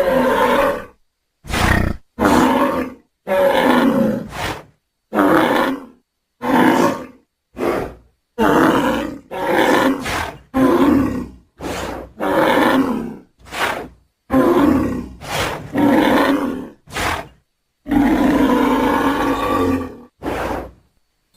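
Edited bison and bull vocalizations used as the call of an extinct giant bison: a series of about eighteen short bellows and grunts, each under two seconds, separated by brief silences, with the longest bellow near the end.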